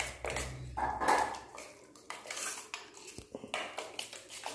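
Hands mixing flour and chopped fenugreek leaves in a stainless steel bowl: irregular scrapes and clinks against the steel.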